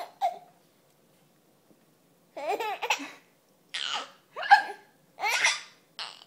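A baby giggling in short, high-pitched bursts along with a woman's hiccups. After a pause of about two seconds near the start, five or so bursts come in quick succession.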